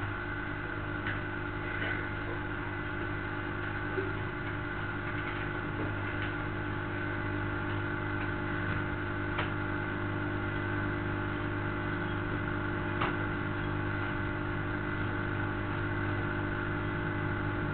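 Steady background hum in the recording, a constant drone of several held tones over low noise, with a few faint clicks.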